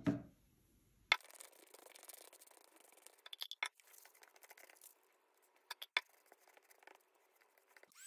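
Paper being handled and worked by hand: a soft thump at the start, then scraping and rustling with sharp clicks now and then.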